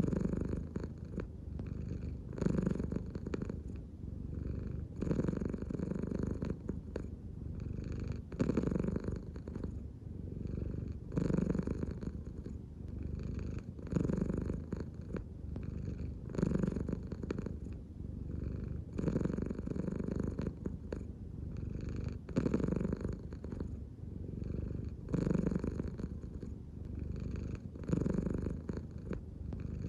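American Shorthair cat purring close to the microphone, a continuous low rumble that swells and eases in a steady rhythm about every three seconds, following each breath drawn with the belly.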